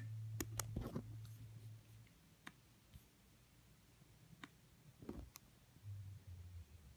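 About half a dozen quiet, separate clicks spread over several seconds, from someone operating a laptop to open the next video, over a low steady hum.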